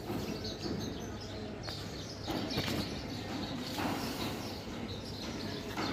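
Birds chirping over steady outdoor background noise, with two brief louder noisy swells around the middle.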